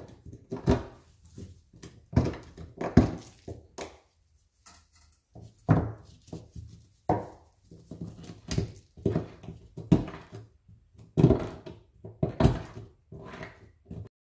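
A knife blade digging and scraping into the hard casing of a canister salute shell's burst, giving irregular thunks and scrapes about once a second. The sound cuts off shortly before the end.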